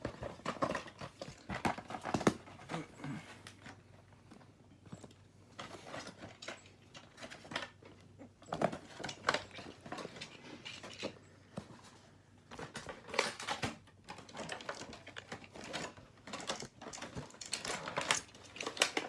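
Toy packaging and small plastic parts being handled and opened: irregular clicks, taps and crinkly rustles.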